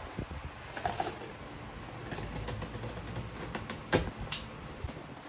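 Light clicks and taps from objects being handled, with a sharper knock about four seconds in and another just after.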